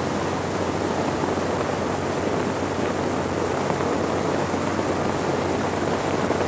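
Twin Caterpillar C-32 ACERT diesels droning steadily with the boat running at speed, under a loud rush of wind and water along the hull. A thin, steady high-pitched whine sits over it.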